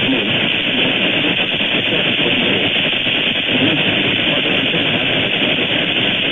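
Steady hiss of radio static from a weak NOAA Weather Radio signal picked up on a software-defined radio, with the warning broadcast's voice lost beneath it.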